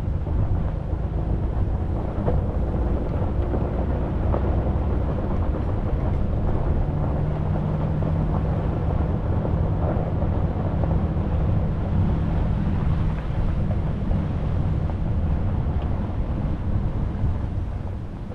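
A vehicle driving, with a steady low engine and road rumble.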